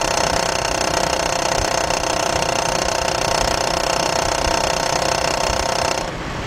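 2003 GMC Envoy's 4.2-litre inline-six running with the AC on, with a fast steady metallic rattle and whine from the front accessory drive: the sign of a failing serpentine belt tensioner whose pulley is hitting against the engine block. The sound drops away suddenly near the end.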